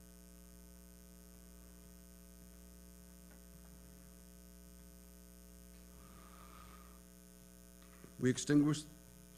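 Steady electrical mains hum, a low buzz with its overtones, in a quiet hall. A short burst of a voice comes about eight seconds in.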